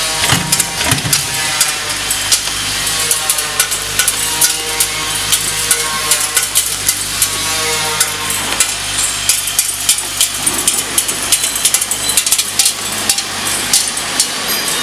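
Fastener packaging machine with two vibratory bowl feeders running: a steady low hum under many rapid, irregular clicks of small metal parts rattling.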